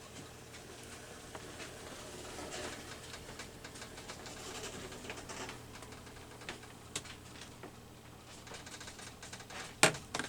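Small clicks, taps and faint paper rustling as paper cutouts are handled with tweezers on a tabletop, with one sharp tap near the end.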